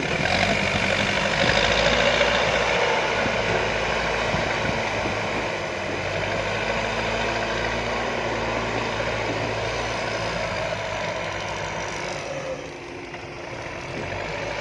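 Diesel engines of earthmoving machines, backhoe loaders and an excavator, running steadily at work. The sound eases briefly a little past twelve seconds in.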